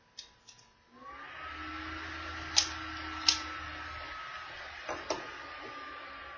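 A toy power tool's small battery motor starts up about a second in and runs steadily, with a whine that rises as it spins up and then slowly sinks. Several sharp plastic clicks fall over the running motor.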